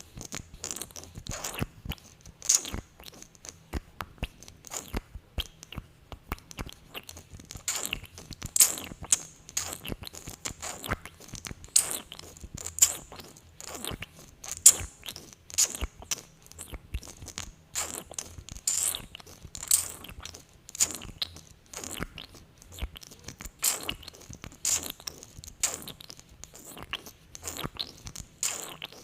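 Close-miked sticky mouth sounds from lips coated in lip gloss: an irregular run of short wet clicks and pops, several a second, as the glossy lips press together and pull apart.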